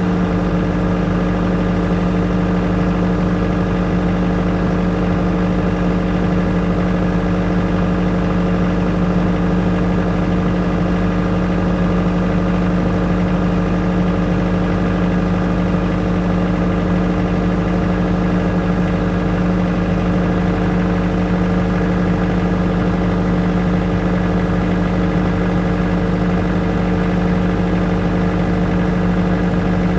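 Engine-driven generator running steadily at constant speed: an even hum that holds the same pitch throughout, with no change in speed.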